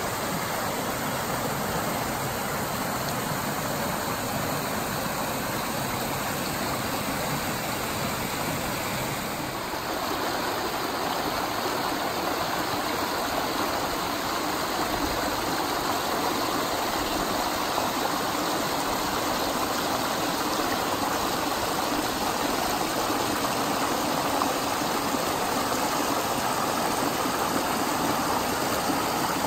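Small forest brook running and splashing over stones and little cascades: a steady rush of water that grows a little fuller about ten seconds in.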